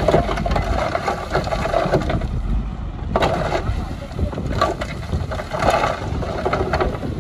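Diesel engine of a 5-ton dump truck running steadily as its bed tips up to dump soil, with wind buffeting the microphone.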